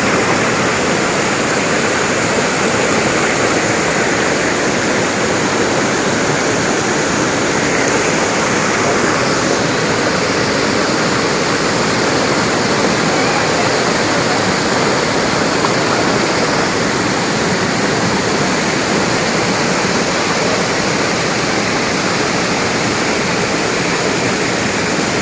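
Waterfall roaring steadily: a loud, unbroken rush of falling water.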